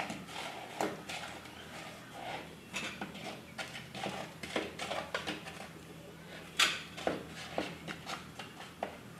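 Irregular light clicks and knocks, a few every second, with one sharper knock about six and a half seconds in, over a steady low hum.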